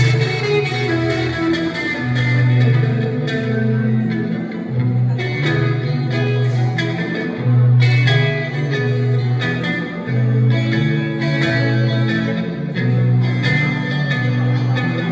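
Guitar improvising a blues in B minor over a looped rhythm part played back by a looper pedal, with repeating low notes under a changing lead line.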